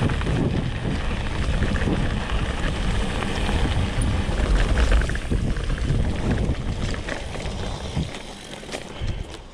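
Riding noise on a trail: wind buffeting the microphone over 29x3 tyres rolling on dirt as the Priority 600X mountain bike moves along. The noise eases off about eight seconds in.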